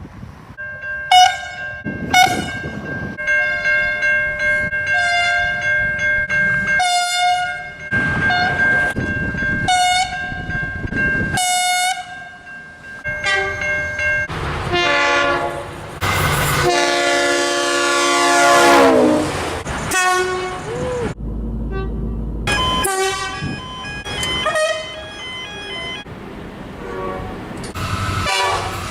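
A string of train horns, one after another: a run of short toots from chord horns sounding several notes at once, then longer blasts, one of them sliding down in pitch. Train rumble sits under some of them, and each horn is cut off abruptly into the next.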